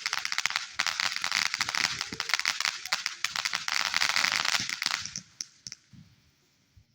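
Fireworks crackling: a dense, rapid run of sharp pops that thins out about five seconds in to a few scattered cracks, then stops.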